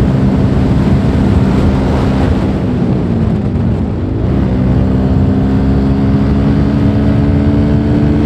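Suzuki Gixxer's single-cylinder engine running under way. The engine note sags and drops about three seconds in, then picks up and holds steady again.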